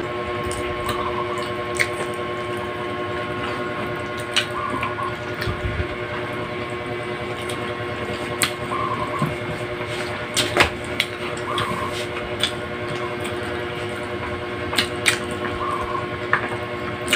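Eating with bare hands: chewing, lip smacks and fingers picking rice and potatoes off a banana leaf, heard as scattered sharp clicks. Under them runs a steady mechanical hum with several held tones, with a short faint blip every three to four seconds.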